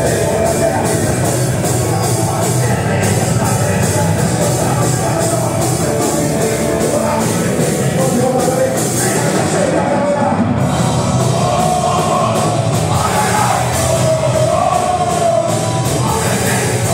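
Punk rock band playing live and loud, electric guitars over a steady drumbeat, with a wavering melody line coming in over it about twelve seconds in.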